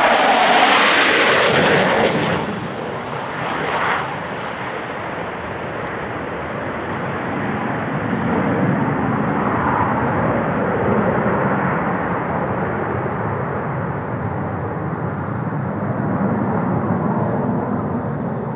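Panavia Tornado jet, with its twin RB199 turbofan engines, passing low and close: a loud jet roar with a high hiss that falls off sharply about two seconds in. A steadier, more distant jet rumble then continues as the aircraft flies on along the valley.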